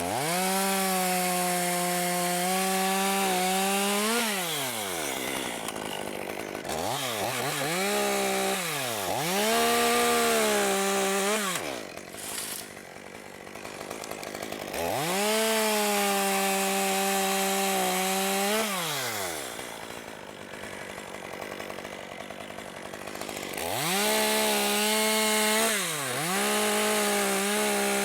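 Chainsaw cutting dead ash wood: the saw revs up and holds at full throttle through three long cuts, with a few short blips of the throttle and stretches of lower idling between them.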